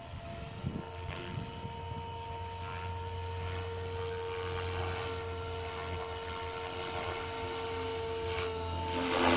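Protos 500 radio-controlled helicopter in flight: a steady whine from its motor and rotor blades, rising into a louder rush of blade noise near the end.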